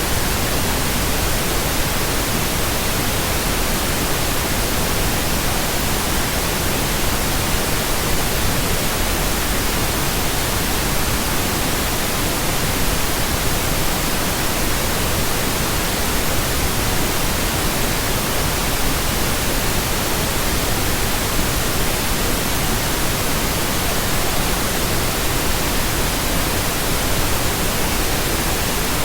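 Synthetic pink noise: a steady, even hiss spread across the whole range, with no tones, rhythm or changes.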